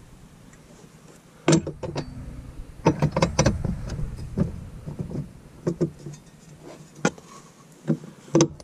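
Irregular metal clanks and knocks as a steel dead pedal and its bracket are handled and test-fitted in a Jeep's footwell, with some clusters of quick knocks and a few louder single knocks.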